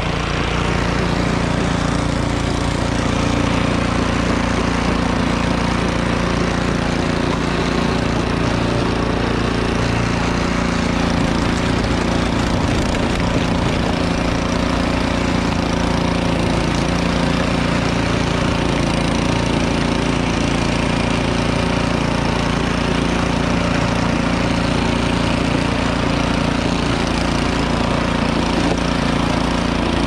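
Two-stage gas snowblower engine running steadily at working speed while the machine clears deep snow, with the auger churning and the chute throwing snow.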